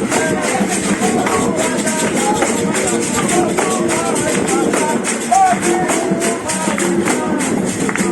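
Live procession music: hand percussion keeping a steady beat, with voices singing over it.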